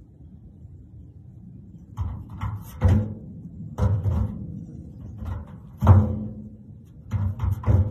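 A baby goat's hooves landing on the lid of a galvanized metal stock tank: irregular thumps, each with a short ring, coming in quick clusters from about two seconds in.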